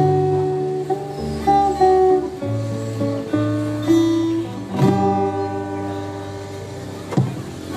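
Live rock band playing an instrumental intro: guitar chords ringing over held bass guitar notes, changing every second or two with a few sharp strums.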